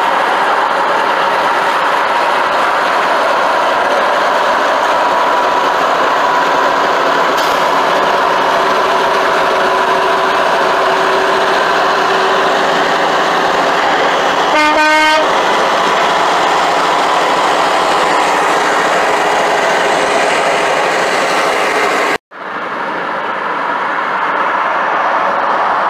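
Steady road and wind noise inside a moving car, with one short blast, under a second long, of a Peterbilt 359's air horn about fifteen seconds in. The sound cuts out for an instant near the end, then the road noise returns.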